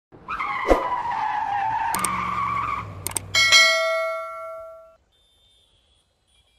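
Sound effect of a car's tyres squealing in a drift, broken by sharp mouse-like clicks, followed about three and a half seconds in by a single bell chime that rings out and fades away: a stock subscribe-button animation sound.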